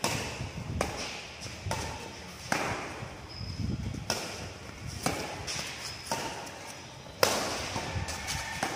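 Badminton racket strings hitting a shuttlecock during a rally: a string of sharp pops about a second apart, the loudest one near the end.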